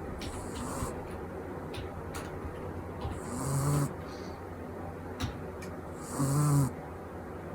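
Pekingese–pug mix puppy snoring with a squeaky "bupi-bupi" snore. There are three snores about three seconds apart, each under a second, and the first is fainter.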